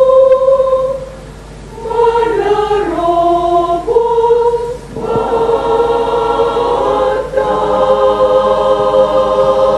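Women's choir singing: a long held note fades away about a second in, then the voices come back in with moving lines and build to a full, sustained chord near the end.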